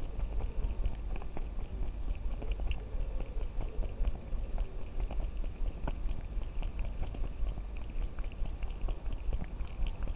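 Close rubbing and rustling on a cat's collar-mounted camera: a steady low rumble with scattered clicks and ticks.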